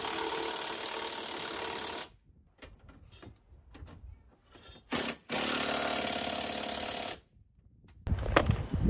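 A power wrench running twice, each time for about two seconds, driving in a suspension control arm's mounting bolts, with a few small clicks between the runs. Near the end come louder, irregular clattering knocks.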